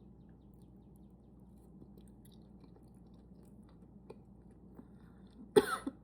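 Faint chewing of food, then a sudden loud cough near the end, set off by spicy food.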